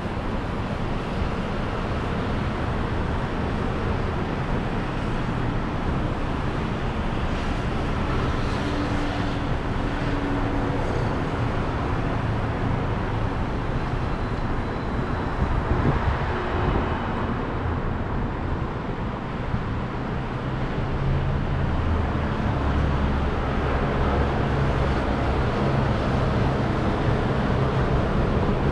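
City street traffic: a steady wash of passing vehicles, with a low engine hum growing louder in the last third.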